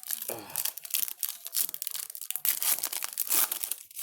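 Trading card pack wrapper being torn open and crinkled, a dense run of crackling and tearing that stops near the end.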